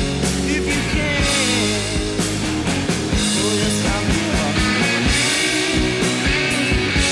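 Background rock music with a steady drum beat and a singing voice.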